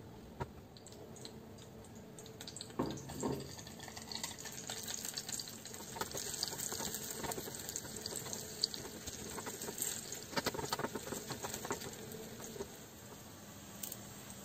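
Ingredients frying in hot oil in a small steel tempering pan, sizzling and crackling, with a metal spoon clinking against the pan as they are stirred. A few clicks come about three seconds in, and the sizzle fades a little before the end.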